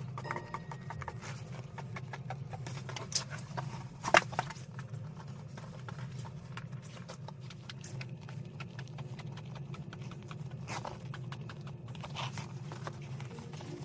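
Scissors cutting through a thick vinyl coil mat and the mat being handled, a crackling run of snips and clicks with two sharper clicks about three and four seconds in. The stiff coil material is hard going for the scissors.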